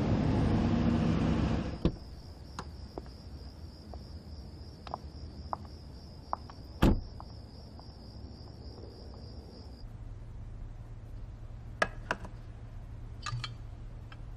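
A car driving up a wet road, cut off suddenly about two seconds in; then a steady high insect trill, crickets at night, with scattered light clicks and one sharp knock near the middle. Near the end the trill gives way to a low steady hum with a few more clicks.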